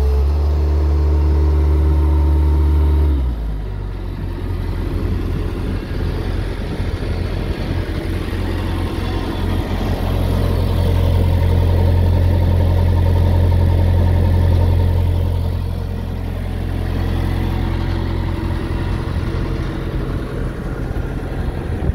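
Bobcat 753 skid steer's diesel engine running steadily. About three seconds in the engine speed drops, and in the middle it runs louder for several seconds.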